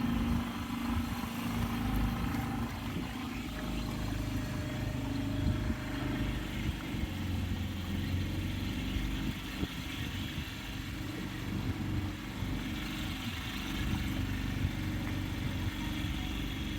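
Small backwater passenger boat's motor running steadily under way, a continuous low engine rumble.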